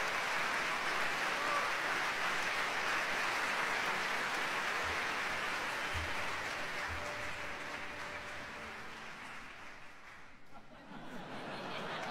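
Large concert audience applauding, dying away about ten seconds in.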